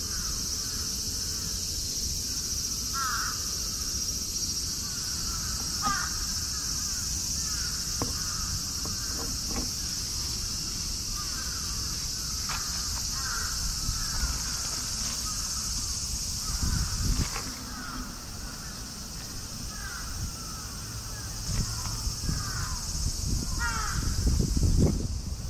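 Crows cawing now and then over a steady high insect drone. Some low rustling and bumps come in the second half.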